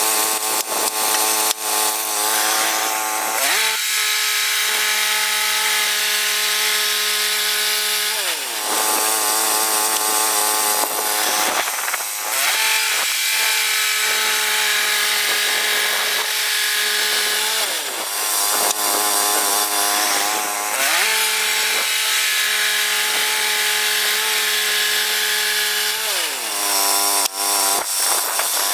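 Woodland Mills HM122 portable bandsaw mill sawing red cedar: its gas engine runs at speed under the hiss of the band blade in the wood, the engine pitch dropping and rising again several times.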